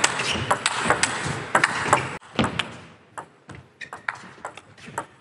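Table tennis rally: a celluloid-plastic ball clicking sharply off the players' rackets and bouncing on the table, several clicks a second. A dense background noise under the clicks cuts off about two seconds in.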